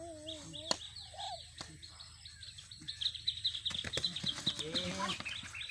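Small birds chirping in quick repeated notes, thickening to a dense chatter about halfway through. A single sharp knock comes a little under a second in, and boys' voices call out at the start and near the end.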